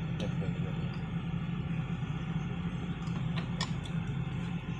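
An engine running steadily at idle, a constant low hum, with a few faint light clicks about three and a half seconds in.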